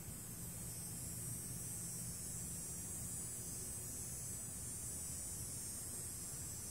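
Steady high-pitched chorus of insects outdoors, an even hiss with no separate calls, over a faint low hum.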